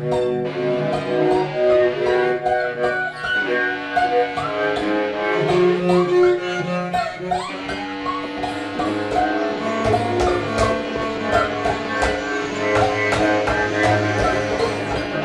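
Free-improvised music on cello, electric bass guitar and keyboard: bowed cello notes mixed with plucked notes and sharp attacks, and a long held low note through the second half.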